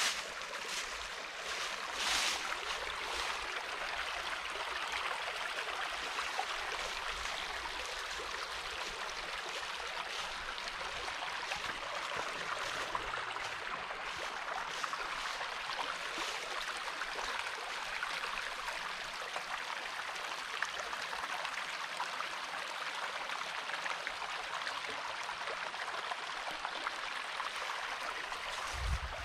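Stream water rushing steadily, an even wash of flowing water, with a brief louder rustle about two seconds in.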